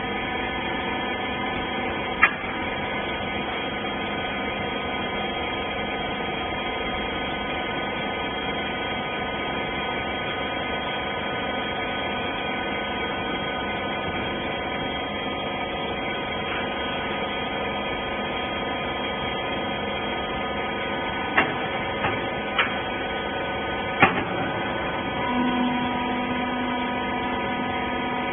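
Industrial rag baler machine running with a steady mechanical hum. A few sharp knocks sound, one about two seconds in and several near the end, and a low steady tone joins near the end.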